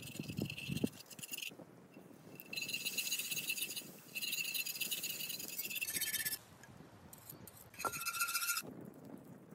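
Wire whisk scraping and ringing against a cast-iron pan, whisking a thin sauce in three bursts of rapid strokes with short pauses between them.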